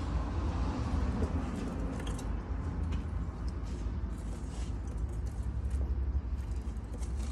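A steady low rumble with a few short, faint chirps from lovebirds in the aviary.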